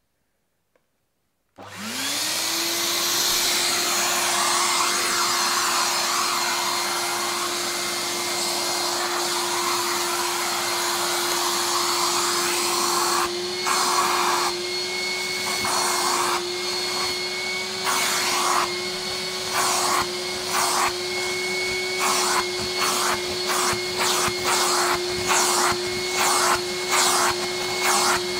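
VAX POWA 4000 wash vacuum cleaner switched on about a second and a half in, its motor spinning up to a steady whine over loud rushing air. From about halfway on, the suction noise swells and drops in a quick, regular rhythm as the nozzle is pushed back and forth over the carpet, sucking up flour.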